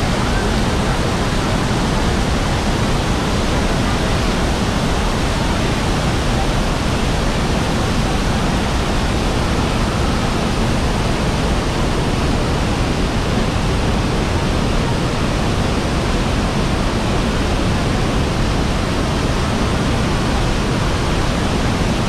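A large waterfall's falling water, a loud, steady rush that never lets up.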